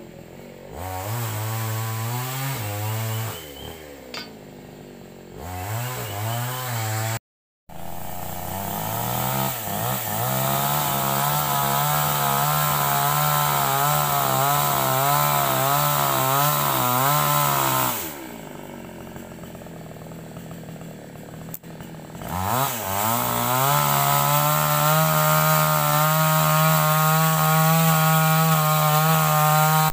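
Two-stroke chainsaw engine revved in two short bursts, then held at high speed for about ten seconds, dropping back to a low idle, and held high again near the end.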